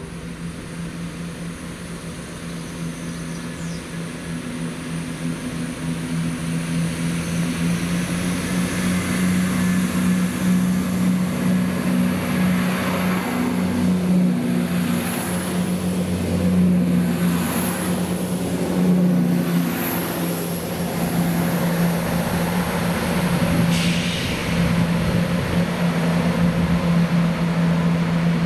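Chiltern Railways Class 168 diesel multiple unit's underfloor diesel engines running with a steady low drone, growing louder over the first ten seconds or so.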